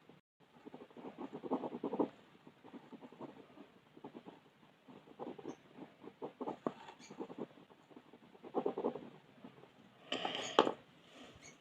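Coloured pencil scratching on paper in quick back-and-forth shading strokes, coming in bursts of about a second with short pauses between them. A louder, sharper scrape comes about ten seconds in.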